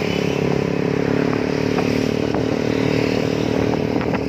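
Motorcycle engines running at a steady cruising speed in a group ride, one engine close by, with a steady even note and a few faint clicks.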